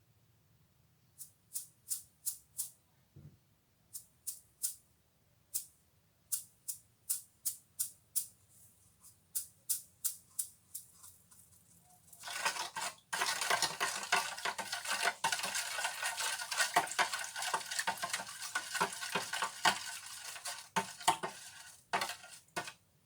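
Hand scrubbing or scraping: separate short strokes about two a second, then from about halfway through a fast, continuous, louder scrubbing that stops just before the end.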